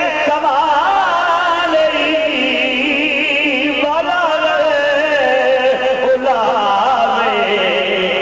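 A man's voice chanting in long, wavering melodic phrases into a microphone, the sung style of a Muslim preacher's oration.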